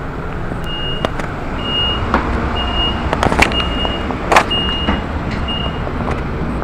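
Door warning beeps on a Long Island Rail Road C3 bilevel coach stopped at a station: six short, high, steady beeps about a second apart, over a steady low rumble, with a few sharp knocks, the loudest about halfway through.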